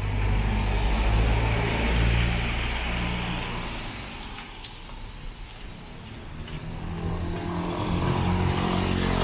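Motor vehicles passing close by on a wet road. The first is an engine drone with tyre hiss over the first few seconds; it fades, and a second vehicle's engine grows louder from about seven seconds in.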